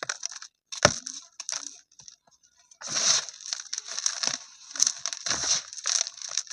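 Dry, grainy cement chunks being crumbled and smashed. A sharp crack comes a little under a second in, followed by repeated bursts of gritty crunching and crumbling.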